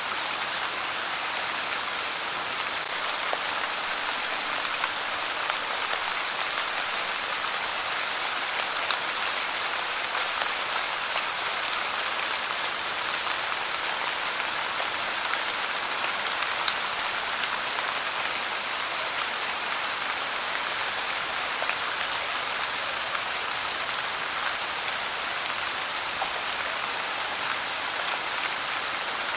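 Light rain falling steadily: an even hiss with small scattered drop clicks.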